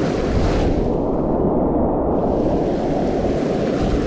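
Whitewater rapids rushing loudly around a kayak, with wind buffeting the microphone. The higher hiss dulls for a moment about a second and a half in.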